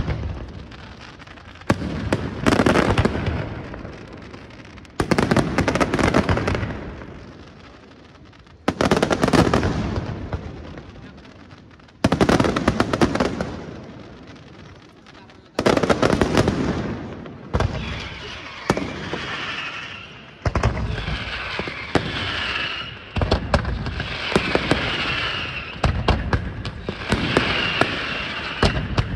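Daytime fireworks: aerial shells bursting with loud booms about every three to four seconds, each dying away over a couple of seconds. From about halfway the bursts come faster, a dense run of bangs and crackling with a shrill wavering sound over it.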